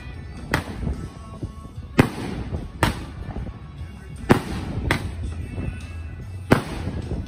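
Consumer firework cake shots bursting overhead: six sharp bangs at uneven intervals, with wind buffeting the microphone as a low rumble underneath.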